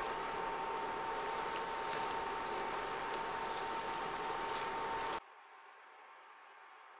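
Fried rice with vegetables and shrimp sizzling in a hot cast-iron pot while being turned with a wooden spoon, with small scraping clicks from the stirring. The sound cuts off suddenly about five seconds in, leaving only a faint hiss.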